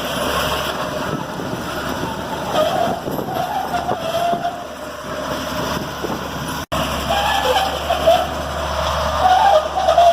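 Heavy road-works machinery running as it digs into the old asphalt road surface, a steady mechanical din with a wavering mid-pitched whine. The sound cuts out for an instant about two-thirds through.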